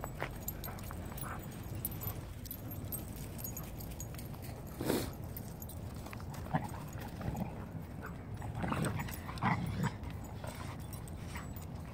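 Dogs romping and play-wrestling, with a few short play noises from the dogs, most of them in the second half. There is a sharp, brief sound about five seconds in.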